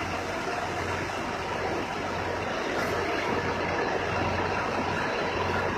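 Truck engine idling: a steady low hum under a constant rushing noise.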